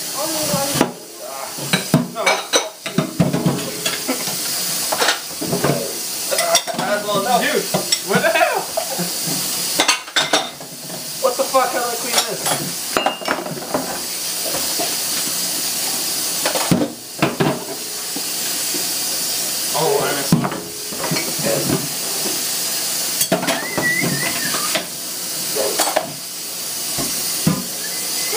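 Kitchen tap running into a sink with a steady hiss while dishes are hand-washed quickly, plates, glasses and cutlery clinking and knocking together over and over.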